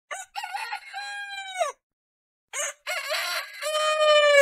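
Rooster crowing twice, each crow starting choppy and ending in a long held note.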